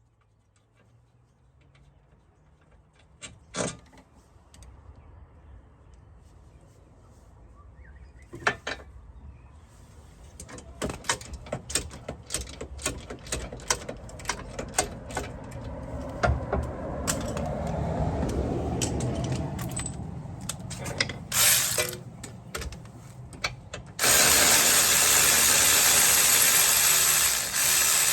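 Mechanic's hand tools clicking, knocking and ratcheting during wheel-bearing work on a car, growing busier over the first twenty seconds. Near the end comes a loud, steady hiss lasting about four seconds.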